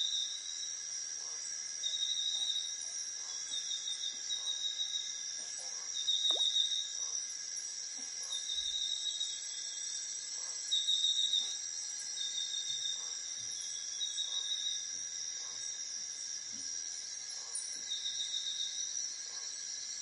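A steady chorus of insects: several constant high whines held throughout. A short, high trilled chirp recurs every one to two seconds over the top.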